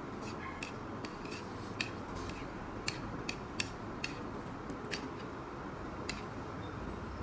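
Close-up eating sounds: a person chewing noodles, with irregular sharp clicks from the mouth and from wooden chopsticks against the plate, over a steady background hiss.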